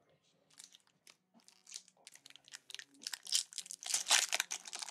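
Crinkling and tearing of a baseball card pack's wrapper as it is ripped open. Sparse sharp crackles at first, growing busier and louder over the last couple of seconds.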